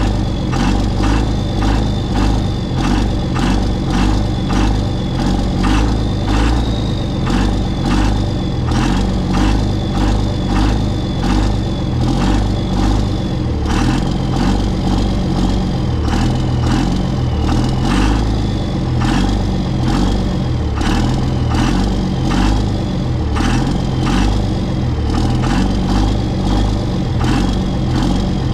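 Cummins 5.9 L inline-six diesel being cranked by its starter without catching, a steady rhythmic pulsing over a high starter whine. It will not fire because the VP44 injection pump has lost its prime and no fuel is reaching it.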